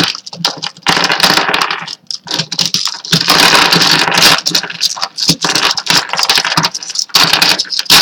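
Plastic pieces of a Rubik's brand 4x4 cube clicking and rattling in quick irregular bursts as its layers are twisted and pieces come off.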